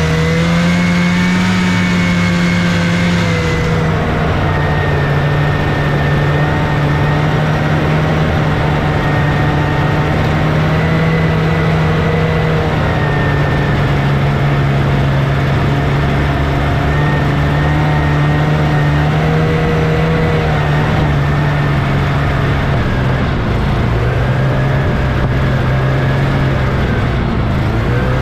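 A 1979 Scorpion Whip snowmobile's Cuyuna 440 two-stroke twin engine running steadily under way, its pitch easing slightly up and down a few times as the throttle changes.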